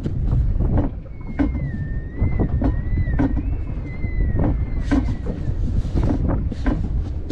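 Wind buffeting the microphone on the deck of a small boat at sea, a steady low rumble, with scattered knocks from the hull and fishing gear as the angler fights a fish. A thin wavering tone runs faintly through the middle.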